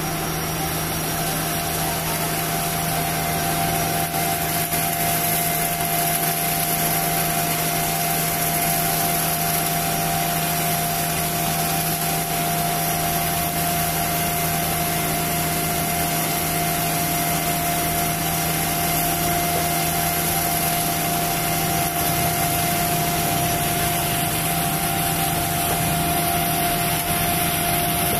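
Concrete mixer truck's engine running steadily while its drum discharges concrete down the chute, a constant machine hum with steady tones and no change in speed.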